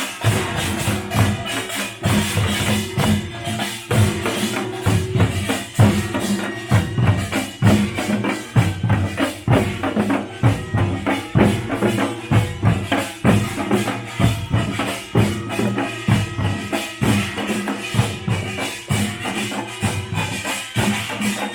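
Live Korean pungmul folk percussion band playing: drums beating a fast, driving rhythm with metallic clattering on top.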